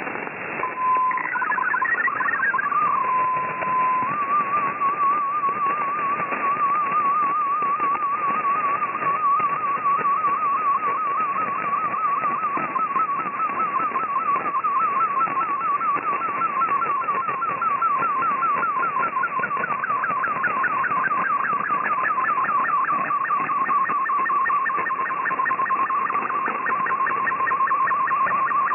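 Shortwave Radiogram digital picture transmission received on 5850 kHz: a continuous warbling tone whose pitch follows the brightness of a colour image being sent in fldigi's MFSK picture mode, over a steady hiss of shortwave static. Near the start a steady tone and a short burst of chirping tones come before the warbling begins, and a second, higher warbling line joins it about two-thirds of the way through.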